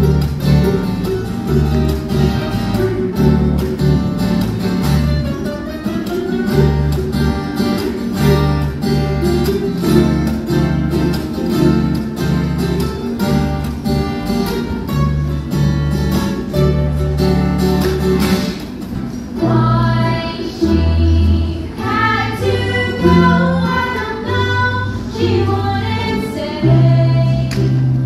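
Several ukuleles and an acoustic guitar strummed together in a steady rhythm as a song intro. About nineteen seconds in, girls' voices come in singing over the strumming.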